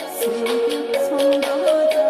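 Korean trot song playing: a melody moving in held notes over a steady beat of drum hits.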